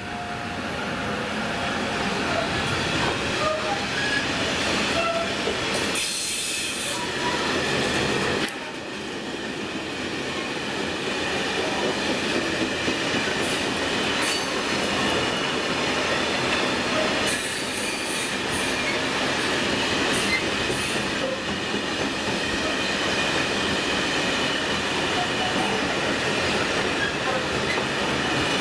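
Freight train passing close by: a Class 285 diesel-electric locomotive followed by a long rake of hopper wagons rolling past, with steady wheel rumble and rail clatter. Brief high wheel squeals come a few seconds in and again past the middle.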